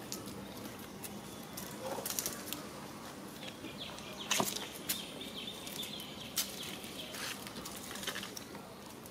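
Outdoor ambience: steady hiss with scattered light clicks and rustles, the sharpest about four seconds in, and a faint thin high call through the middle.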